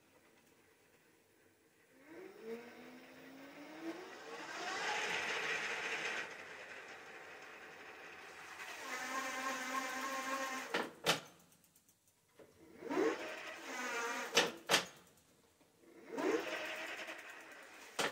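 E-bike front hub motor spinning the wheel up with a rising whine, running steadily and then dying away, several times over as the pedal is turned by hand: the pedal assist sensor's pulses, converted to a throttle signal, switch the motor on. A few sharp clicks come between the runs.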